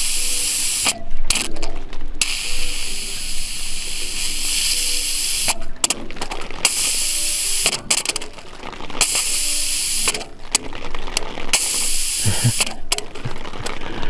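Air and water spraying out of a push-button bleed valve on a heat pump's water pipe, a loud hiss that stops and starts several times as the button is pressed and released: trapped air being purged from the heating circuit.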